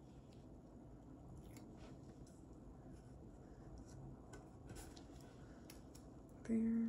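Faint rustling and small clicks of paper stickers being peeled off a sticker sheet and pressed onto planner pages by hand. A woman's voice starts briefly near the end.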